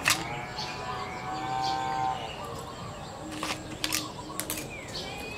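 A drawn-out animal call, held steady for about two seconds, then a few sharp clicks as a spoon scoops avocado a little past halfway through.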